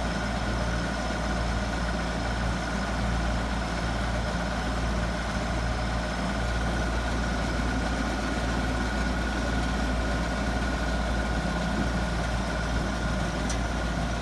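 Compact diesel tractor engine running steadily while driving a small round baler through its 540 PTO, with a thin, steady high whine over the engine's drone.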